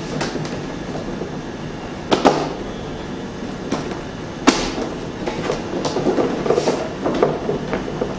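White plastic panels of a folding LED photo light box clicking and scraping as they are pressed and fitted together by hand. There are a few sharp clicks, the loudest about four and a half seconds in, with rustling handling noise between them, busiest in the last couple of seconds.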